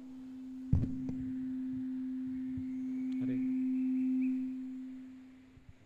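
A steady, low, pure tone is held with a sharp knock about three-quarters of a second in. The tone swells a little near the four-second mark, then fades away.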